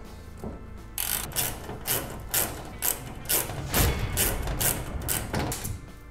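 Ratchet driving a Torx screw into a pickup's fuel door hinge mount: from about a second in, short bursts of ratchet clicking come about twice a second, one for each swing of the handle.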